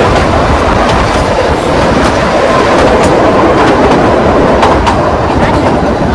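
Kalka–Shimla narrow-gauge toy train running, a loud steady rumble of wheels on the rails with scattered faint clicks.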